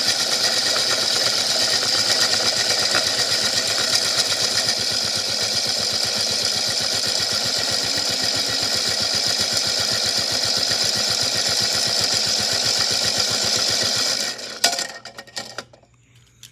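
Toy washing machine's small motor running steadily, with toy cars rattling fast and clattering against the drum. It stops about fourteen seconds in, and a few sharp clicks and knocks follow.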